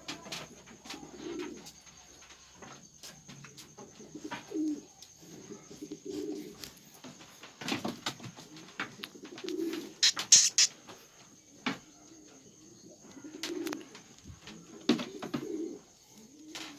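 Pigeons cooing over and over, low soft calls every second or two, with scattered sharp clicks and knocks and a brief loud high-pitched burst about ten seconds in.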